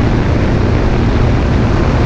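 Loud, steady wind noise buffeting a GoPro's microphone on a moving motorcycle, with the engine running underneath.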